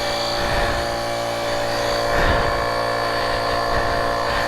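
Fanttik X8 APEX portable tire inflator running steadily with an even motor hum, pumping air into a punctured motorcycle tire.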